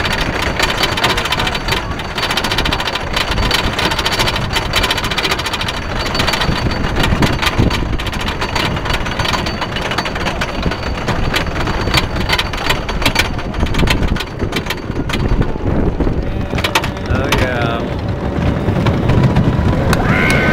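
Wooden roller coaster's chain lift clattering rapidly under the train as it climbs the lift hill. After the crest, riders yell and scream, once a few seconds before the end and again as the train drops away.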